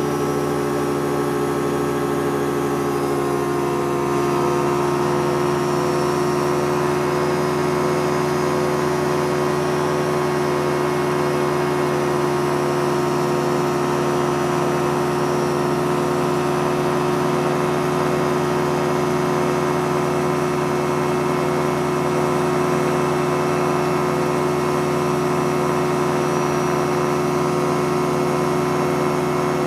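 Light aircraft's engine and propeller running steadily in cruise flight, heard from inside the cockpit, with no change in pitch.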